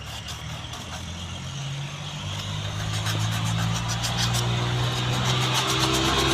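A motor running steadily with a low hum and a hiss, growing a little louder as it runs.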